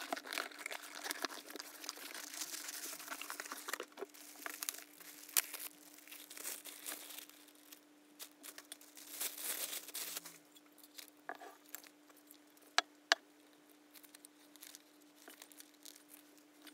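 Plastic wrapping and cardboard packaging crinkling and rustling as a new ceramic-coated cooking pot is unpacked by hand, loudest in the first few seconds and again about halfway. Two sharp clicks come about three quarters of the way in, over a faint steady hum.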